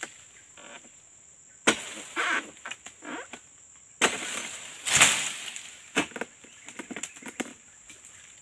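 Oil palm fronds being cut with a long-poled harvesting sickle: four sharp chopping strikes with leafy rustling between them, over a steady high drone of insects.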